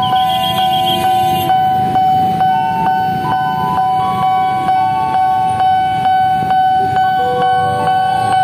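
An electronic melody: held notes stepping up and down over one constant steady tone, with faint regular ticks about three times a second.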